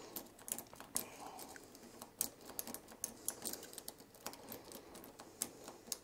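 Lock pick working the pins of a Master Lock M5 Magnum padlock under tension from a wire tension wrench: faint, irregular metallic clicks and ticks, several a second.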